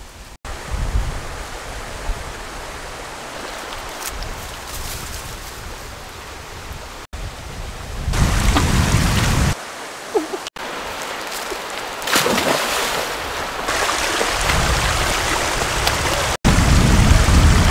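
Steady rushing outdoor noise, broken by several abrupt cuts. There are stretches of loud low rumble about eight seconds in and near the end.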